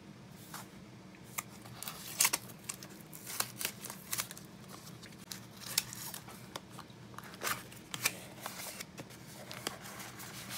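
Cardboard box being opened by hand: packing tape tearing and peeling, cardboard flaps and paper rustling, in a string of short crackles and scrapes.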